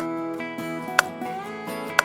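Background music of strummed acoustic guitar with a sharp tick exactly once a second, a countdown timer marking the answering time.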